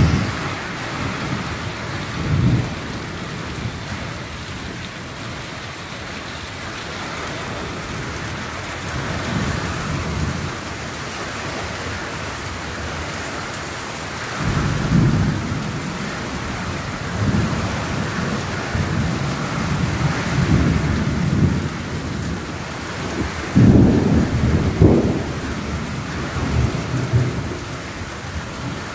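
Heavy rain pouring steadily, with thunder rumbling again and again. The loudest rumble comes well past the middle.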